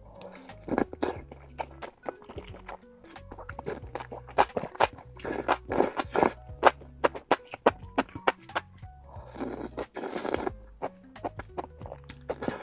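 Crunchy eating sounds: many quick clicks and crackles of biting and chewing food, with two longer noisy stretches around the middle, over background music with low sustained notes.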